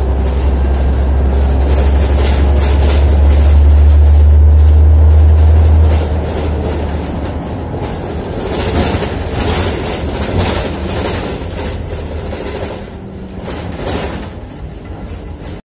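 Scania OmniDekka double-decker bus, heard from inside the lower deck: a deep engine drone builds under load, then drops away sharply about six seconds in. The bus then runs more quietly toward a requested stop, with scattered clicks and rattles from the interior.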